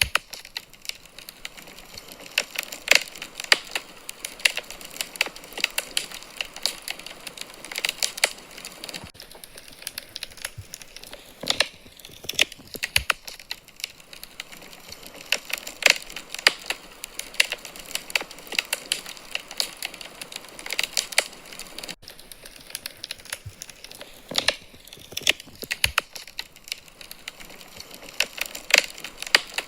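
Wood fire crackling in a fireplace: a steady soft hiss with many irregular sharp pops and snaps of burning logs.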